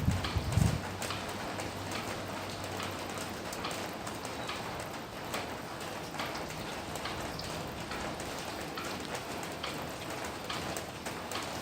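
Steady rain falling, with many separate drops landing close by as sharp ticks. There is a brief low rumble just after the start.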